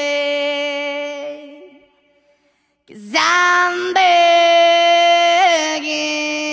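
A sped-up, high-pitched singing voice holding long notes: one note fades out in the first two seconds, about a second of silence follows, then a new long held note starts about three seconds in, with a small bend in pitch near the end.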